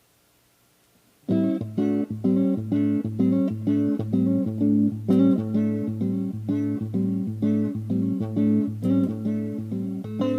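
Fernandes FST-50 Stratocaster-style electric guitar played clean: after about a second of near silence it starts in, picking a steady run of notes, about three a second, over a low ringing bass note.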